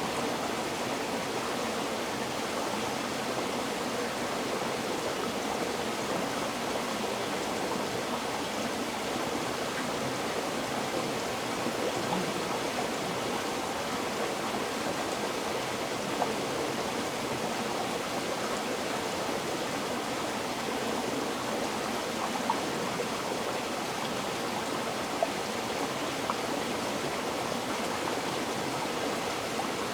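River water flowing steadily, an even rushing babble, with a few faint brief splashes breaking through now and then.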